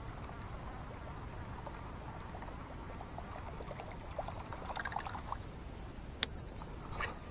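Water splashing and trickling in a short cluster about four to five seconds in, over a steady background hiss. A sharp click a little after six seconds is the loudest sound, with a weaker one about a second later.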